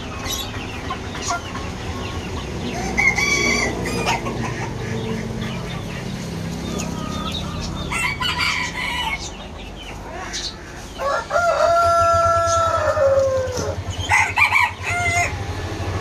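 Chickens calling: several short squawks and clucks, and about eleven seconds in a rooster's long crow lasting about two and a half seconds that drops at its end.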